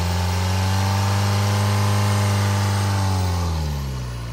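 Isuzu 4KH1 four-cylinder turbo diesel engine running on a test stand, held at raised revs and then dropping back to a steady idle about three and a half seconds in. It runs smoothly, which the seller takes as a sign of an engine with no blow-by or smoke.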